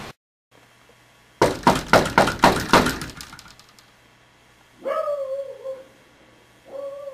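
A rapid run of about eight loud knocks on a front door. Later, twice, a short pitched, wavering call.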